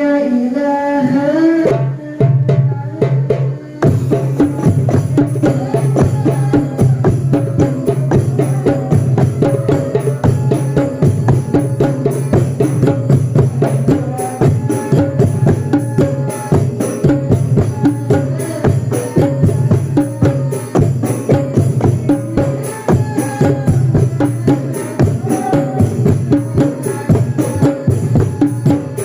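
Drum and hand-percussion music with a fast, steady beat, starting in earnest about four seconds in after a short rising tone.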